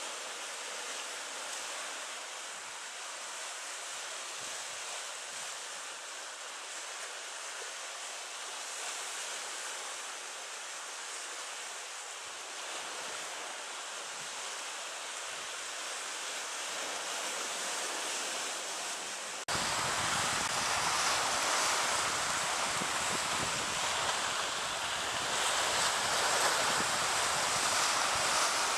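Sea waves washing steadily against the shore, a continuous hiss of surf. About two-thirds of the way through the sound steps abruptly louder and fuller, with a low rumble of wind on the microphone.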